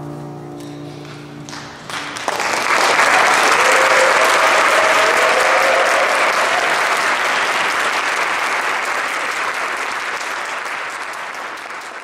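A children's choir's final held chord dies away about two seconds in. Then the audience breaks into applause, which tapers off near the end.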